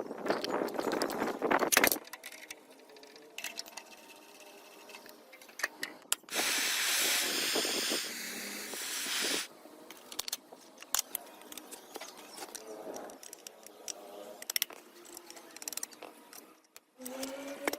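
Workshop handling clicks and knocks, with a loud steady hiss of spraying lasting about three seconds in the middle.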